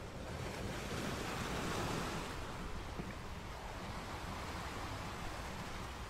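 Ocean surf washing against the shore, swelling to its loudest about two seconds in and then easing, with a smaller swell later. Wind rumbles on the microphone underneath.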